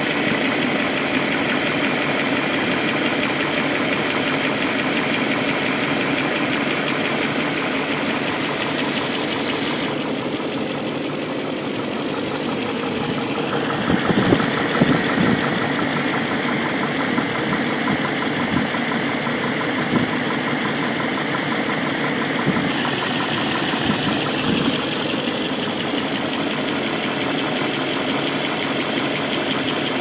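BMW M62B44TU 4.4-litre V8 idling, heard close up in the engine bay, with a few sharper knocks around the middle; the engine is being checked for timing-chain rattle.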